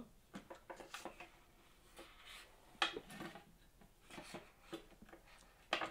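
Faint handling noise: soft rubbing and scattered light clicks, with a sharper click about three seconds in and another near the end.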